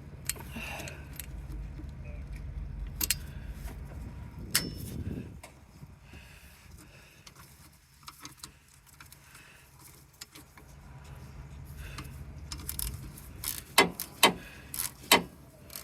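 Hand tools working a brake caliper's slider bolt loose, with scattered metallic clicks and clinks, several louder ones near the end. A low rumble sits underneath, dropping away in the middle.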